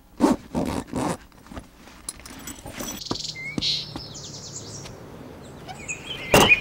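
Handling and rustling of a bag at an open car trunk, with a short rasping scrape in the middle, then a loud single thump near the end as the trunk lid is shut.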